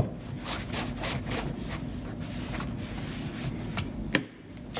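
Disinfecting wipe being rubbed over a rugged iPad case, a run of quick scrubbing strokes, with two sharper clicks near the end.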